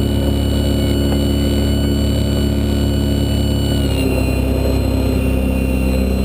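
Swift Lite-E self-launching glider's electric motor and propeller running under power, heard from inside the cockpit: a steady hum with a high whine over it. About four seconds in, the hum and whine both step slightly down in pitch as the motor speed drops a little.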